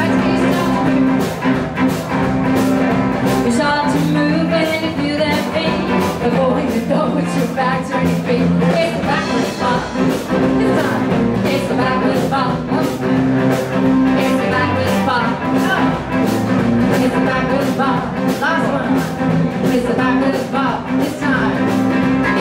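Live blues band playing a song: drum kit keeping a steady beat under guitars and upright bass, with a woman singing.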